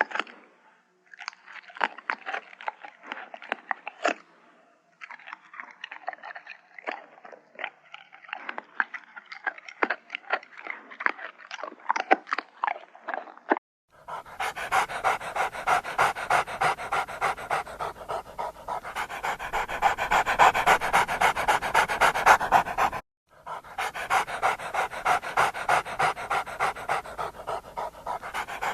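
A dog panting in rapid, rhythmic breaths. From about halfway the panting is louder and fuller, at roughly three breaths a second, with a brief pause near the end.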